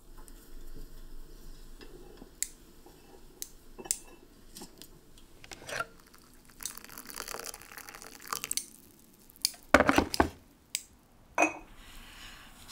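Scattered light clicks and clinks of small hard objects, with a few seconds of hiss in the middle and a cluster of loud knocks about ten seconds in.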